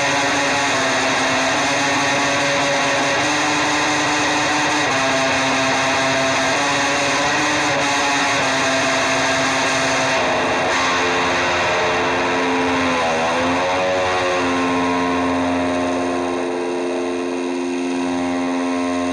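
Heavily distorted electric guitar holding long sustained notes over a dense, noisy wash of sound. About two-thirds of the way through, the pitch bends down and back up.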